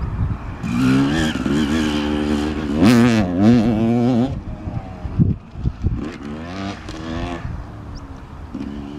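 Motocross bike engine revving, its pitch rising and falling with throttle and gear changes as it rides the track. It is loudest from about a second in to four seconds, then swells again briefly around six to seven seconds.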